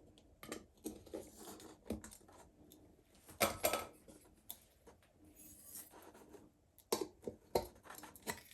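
Putty knife prying and scraping around the edge of a solar garden light's cover, a scatter of faint clicks and scrapes, loudest a little after three seconds in and again near seven seconds.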